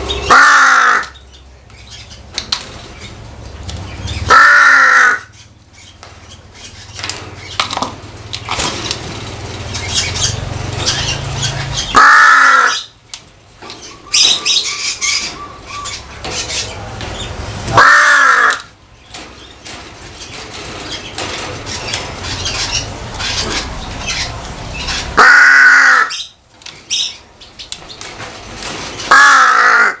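A caged crow cawing: six loud, hoarse single caws spaced several seconds apart, with light clicks and rustling between them.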